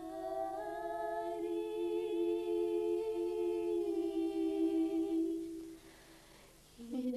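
Unaccompanied voices singing slow, long-held notes together. The singing fades out about five and a half seconds in, and a new held note begins near the end.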